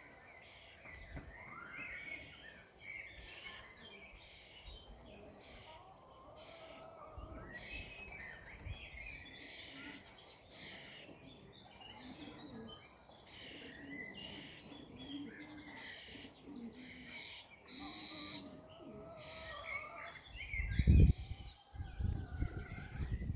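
Fledgling common starling giving repeated short, high begging chirps to be fed. Near the end, a loud low rumble.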